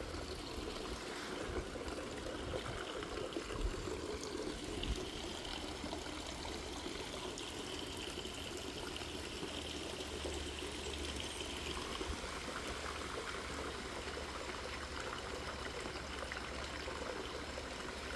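Breeze outdoors: a steady, faint rushing noise, with low rumbles of wind on the microphone.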